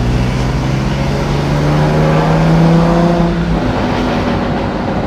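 1955 Mercedes-Benz Ponton 220a's straight-six engine pulling under acceleration, its pitch rising steadily, then falling away about three and a half seconds in and running on at a lower pitch, heard from inside the cabin.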